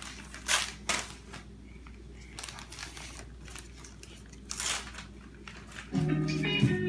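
Gift wrapping paper crinkling and tearing in several short rustles as a small child pulls it open. Near the end, guitar music starts.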